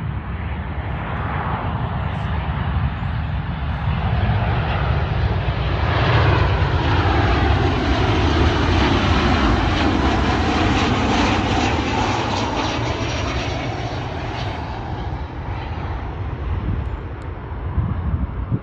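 Jet airliner on final approach passing close by. Its engine noise swells over several seconds, is loudest about halfway through with a sweeping, phasing sound as it passes, then fades away.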